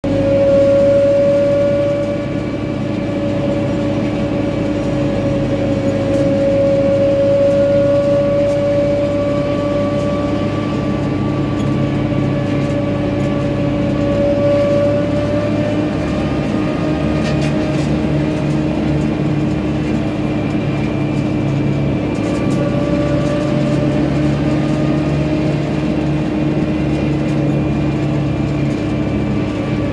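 Farm tractor driving along a road at a steady pace: engine and drivetrain give a steady drone with a whining tone on top that wavers slightly.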